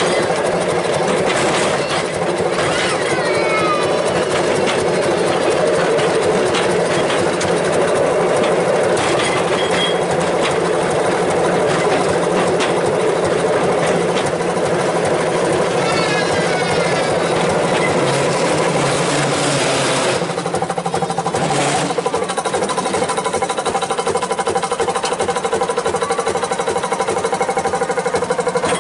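Diesel engine of a train running steadily, heard from aboard as the train rolls slowly along the tracks. The engine tone changes about two-thirds of the way through.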